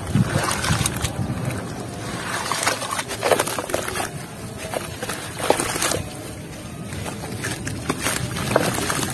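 Hands sloshing and squeezing mud in a basin of water, then crumbling a soaked mound of clay dirt, giving irregular wet crunching and crackling with splashes. Now and then a louder crunch or splash stands out.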